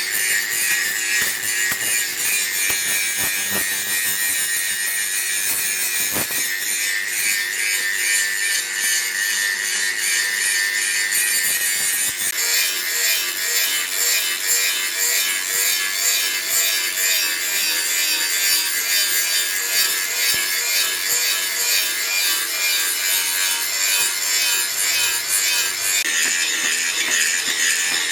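Hand tool working with quick repeated rasping strokes, like a saw or file, with a dense high-pitched grating sound.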